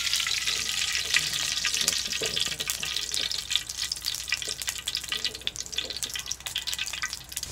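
Cooking oil poured into a hot wok, sizzling with many sharp crackles, the hiss slowly thinning out.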